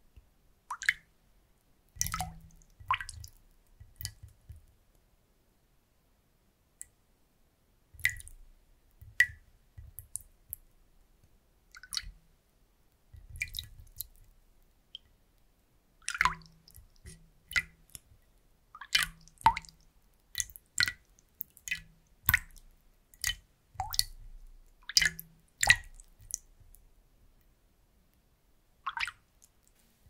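A wooden spoon dipping into water in a wide ceramic bowl, with irregular drips and plops: scattered at first, then a dense cluster through the middle and latter part, then a few quiet seconds near the end.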